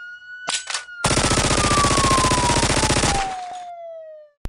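Logo-intro sound effect: a rapid burst of machine-gun fire lasting about two seconds, over a siren-like whistling tone that slowly falls in pitch and fades out, with a short burst before the gunfire and a sharp click at the end.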